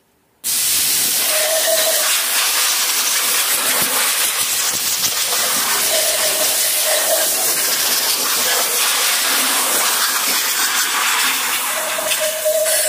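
A loud, steady hiss of rushing air that starts suddenly about half a second in, with a faint whistling tone coming and going.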